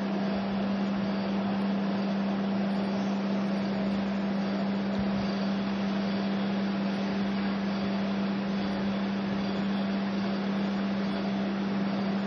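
A steady low hum under a constant hiss, unchanging throughout, with no distinct events.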